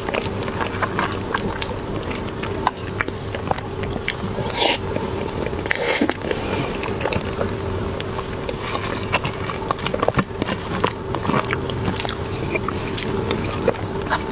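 Close-up eating sounds of soft cream cheese buns being bitten and chewed, with many small wet clicks and smacks, over a steady low background hum.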